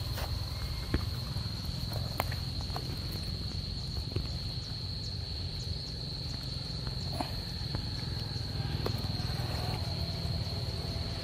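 Evening insect chorus: a steady, high-pitched drone that does not change, over a low rumble, with scattered short clicks and taps.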